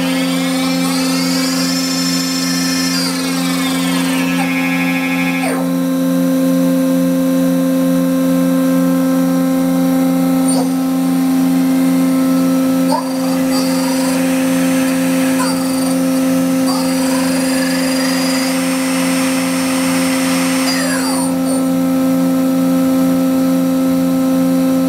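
Mazak Integrex 200 3ST CNC turning and milling center running over a steady low hum. A whine rises, holds and falls twice: once at the start and again about halfway through, as the spindle or axis drives speed up and slow down.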